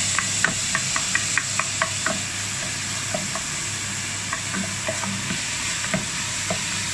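Wooden spatula tapping and scraping against a nonstick pot while onion, garlic, ginger and tomato sauté in hot oil with a steady sizzle. The taps come quickly for the first two seconds, then more sparsely.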